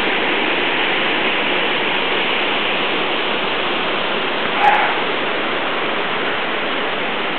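Steady rush of a mountain waterfall cascading down rock ledges. A brief short sound cuts in about halfway through.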